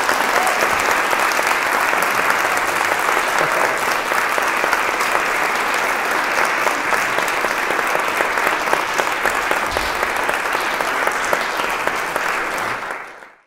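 Audience applauding steadily, a dense sustained clapping that fades out near the end.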